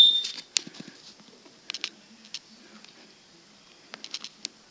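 A combination smoke and carbon monoxide alarm's high-pitched test beep cuts off at the start, leaving a pause between alarm cycles that holds only a few faint clicks and taps.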